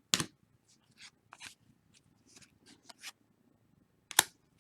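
Football trading cards and their packaging being handled: a sharp click just after the start and another about four seconds in, with a few soft swishes of card and wrapper in between.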